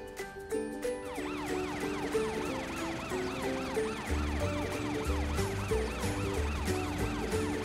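Cartoon emergency-vehicle sirens wailing, rising and falling quickly over and over, starting about a second in. Background music plays under them, with a bass line coming in about four seconds in.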